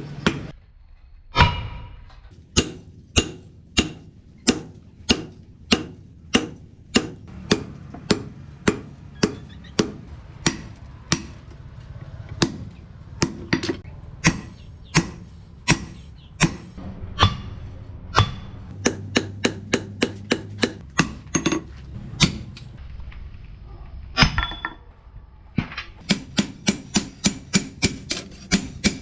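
Hammer blows on leaf-spring steel on an anvil: a steady series of sharp strikes, about two a second, each with a short metallic ring. There are brief pauses about a second in and again near the end, and some runs of faster blows.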